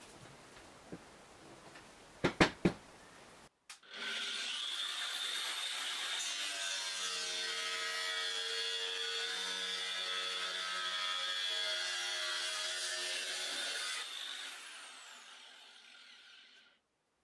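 Angle grinder with a cut-off disc, started and run for about ten seconds as it cuts a line into a yellow sheet, with a steady whine. It is then switched off and winds down over two or three seconds. A few sharp handling clicks come before it starts.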